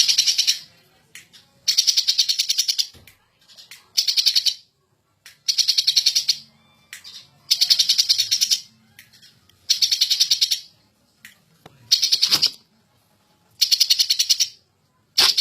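Greater green leafbird (cucak ijo) singing in repeated bursts of rapid, chattering notes, about one burst every two seconds: the fast 'ngentrok' song that keepers prize in an agitated, in-form male.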